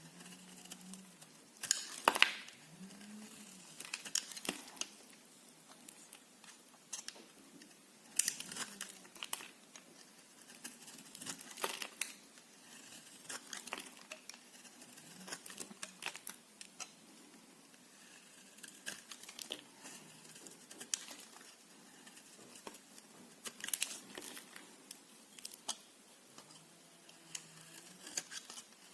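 A knife cutting through dry bar soap close to the microphone: crisp crackling and snapping as the blade goes through, in irregular strokes with louder cuts every few seconds.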